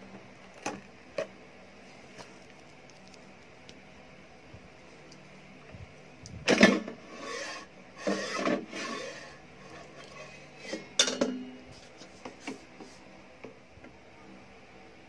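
Monda air fryer's basket drawer being handled and pulled out of its housing: plastic clunks and scraping, the loudest about six and a half seconds in, more around eight and eleven seconds, with a few light clicks before and after.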